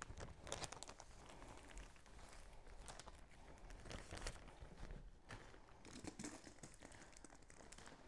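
Faint, scattered crinkling and rustling of plastic being handled, in small irregular crackles.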